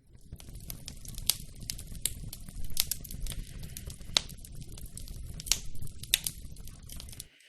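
Recorded fire ambience: a wood fire crackling, with irregular sharp pops and snaps over a low rumble. It stops just before the end.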